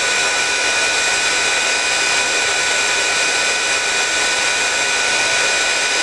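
Heat embossing gun running continuously: a steady rush of blown air with thin, steady high whining tones.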